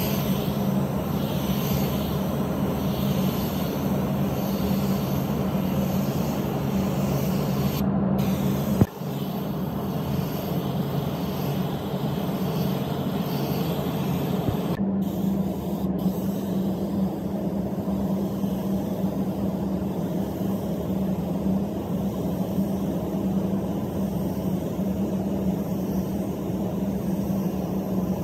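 Automotive paint spray gun hissing steadily as paint is sprayed onto a car door, over a steady low hum, with abrupt shifts in the sound about nine and fifteen seconds in.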